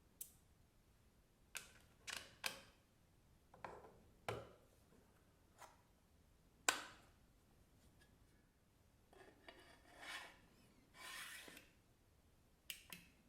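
Faint handling sounds of a metal precision screwdriver kit: scattered light clicks, the sharpest about six and a half seconds in, and a soft rubbing stretch past the middle.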